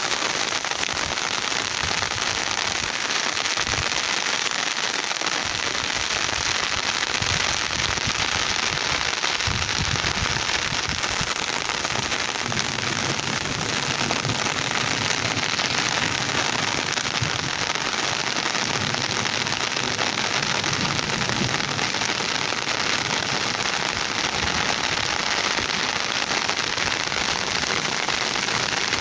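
Rain falling steadily: a dense, even patter of drops.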